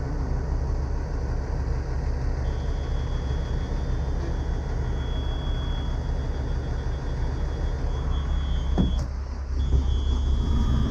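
Diesel engine idling steadily with a low rumble. A high, steady electronic tone, like a machine's warning buzzer, comes in about two and a half seconds in, cuts out briefly near nine seconds, then sounds again.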